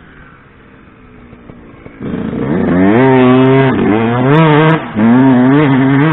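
2007 Yamaha YZ125's 125cc single-cylinder two-stroke engine, faint for the first two seconds, then loud as the bike comes close, revving hard with the pitch climbing and dropping as the throttle is worked, with short cuts in between.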